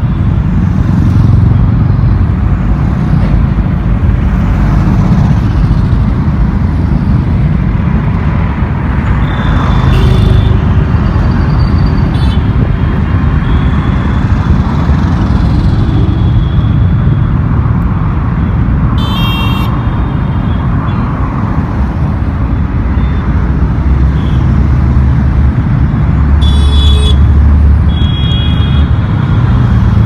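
Heavy road traffic: cars and motorcycles passing close by with a constant low rumble of engines and tyres. Vehicle horns honk several times through it, mostly short toots.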